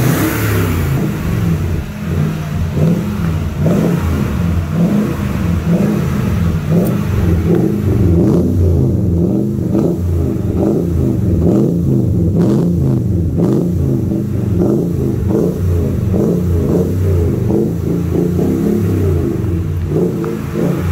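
Toyota Tundra engine running through an aftermarket CORSA dual-pipe exhaust, a low rumble whose pitch rises and falls a little.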